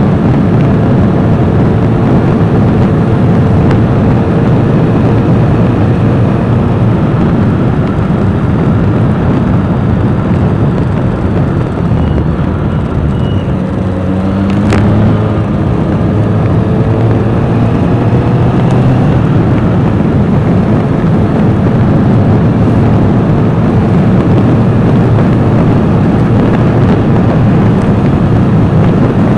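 Heavy wind rush on an outside-mounted camera's microphone along with road noise from a vehicle at speed. It eases off a little about halfway through, then an engine tone rises again as the vehicle picks up speed, with a single sharp click just after.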